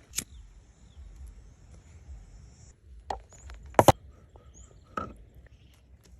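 Several separate sharp knocks, like chops on wood, the loudest a quick double knock a little before four seconds in.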